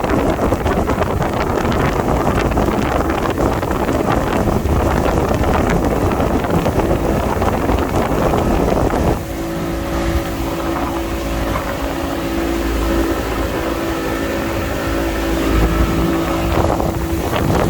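Motorboat under way: engine running with a steady rush of wind and water over the microphone. About nine seconds in the rush eases and the engine's steady hum comes through more clearly.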